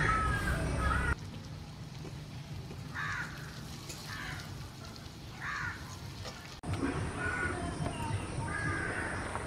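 A crow cawing three times, a second or so apart, with small birds chirping faintly around it.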